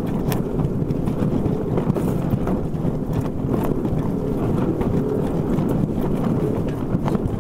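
Wind buffeting the microphone over a steady rush of choppy water streaming past the hull of a traditional Dutch sailing clipper under way.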